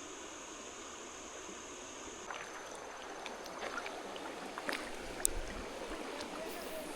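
Mountain creek water running and trickling, busier and gurgling from about two seconds in, with a few sharp clicks.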